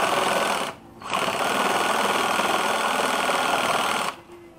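Cordless drill driving a reciprocating-saw adapter, its blade sawing through a dry, hard mahogany plank. It runs steadily, stops briefly about a second in, starts again and cuts off shortly before the end.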